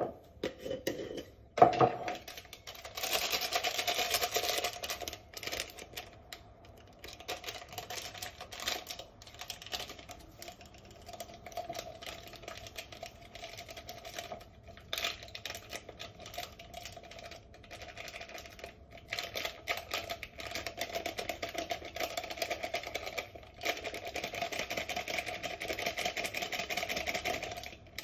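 A glass jar knocking down onto a counter, then plastic drink sachets crinkling and tearing open and powder pouring into the jar, heard as long runs of quick crackling rustles.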